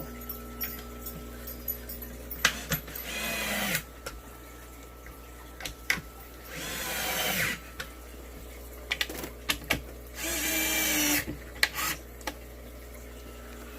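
DeWalt DCF682 8V gyroscopic cordless screwdriver running in three short bursts of about a second each, driving screws into particle board, with small clicks and knocks of handling between the runs.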